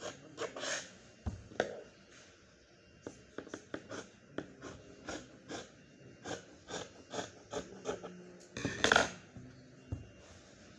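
Fabric shears snipping through folded wax-print fabric in a run of short, crisp cuts, with a louder knock and rustle about nine seconds in.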